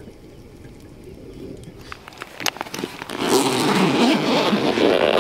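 A padded fabric rod holdall being handled on gravel. A few sharp clicks come about two seconds in, then loud, dense rustling and scraping, with its zip being worked, from about three seconds in.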